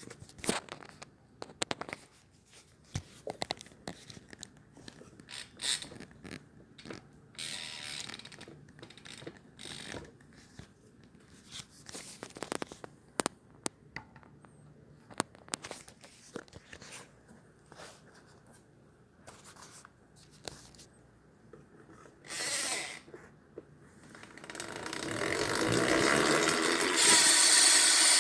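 Scattered light clicks and knocks from a BMX being handled, then, about 24 seconds in, the Tall Order Drone rear hub starts to buzz as the wheel freewheels. The ratcheting swells over a couple of seconds to a steady, super loud whir.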